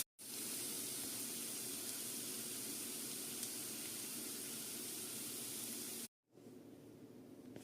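Steady sizzle of food frying in a pan. It cuts off abruptly about six seconds in, leaving a much fainter hiss.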